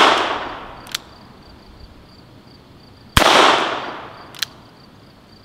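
A .22 LR Uberti Cattleman single-action revolver fires one shot about three seconds in, a sharp crack with an echo that fades over about a second. The echo of a previous shot is dying away at the start. A short, sharp click follows each shot by about a second.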